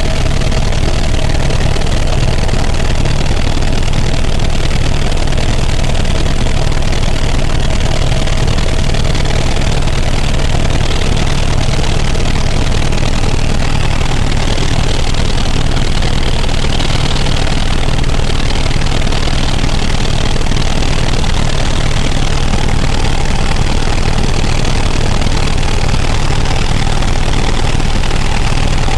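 Helicopter in flight: a loud, steady drone of engine and rotor noise that does not change.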